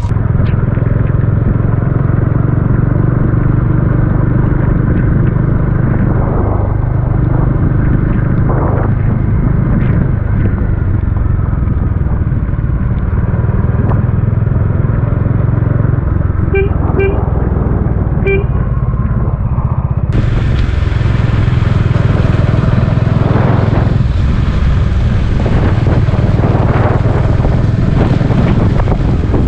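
Bajaj Dominar 400 single-cylinder motorcycle engine running steadily under way, with road and wind noise. About two-thirds of the way in, a vehicle horn toots three times briefly.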